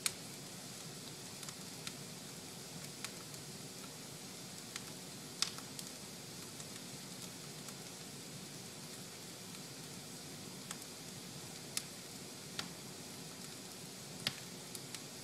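Fire burning in a fireplace: a steady low hiss with sharp crackles and pops at irregular intervals, about a dozen, the loudest at the very start and about five seconds in.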